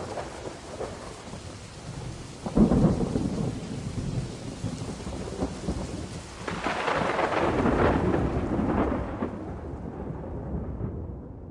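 Thunderstorm sound effect: steady rain with a sudden crack of thunder about two and a half seconds in, then a longer, louder swell of thunder in the middle, fading out near the end.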